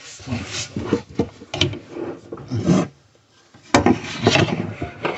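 Irregular rubbing, scraping and knocking as someone gets into position and handles plastic drain pipe under a bathroom vanity, with a short pause about three seconds in and a sharp knock just after it.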